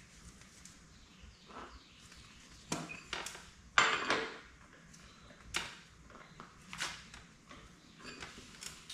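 Metal tools and parts being handled: a few separate metallic clinks and clanks that ring briefly, the loudest about four seconds in.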